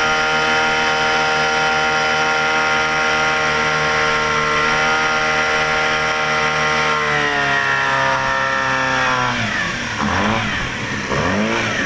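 Yamaha 8 hp outboard motor running steadily while driving the boat. About seven seconds in its pitch drops as the throttle is eased back, and near the end the engine speed dips and rises several times.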